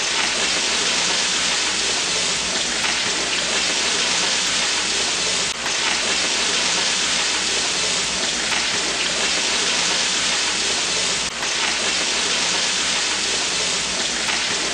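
Beef burger patties sizzling on a charcoal grill: a steady, dense hiss with faint crackles, dipping briefly twice.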